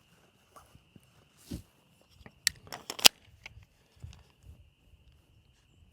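Handling noise from a pistol being readied: a dull knock, then a quick cluster of sharp metallic clicks about two and a half to three seconds in, and a few softer knocks, over a faint steady high tone.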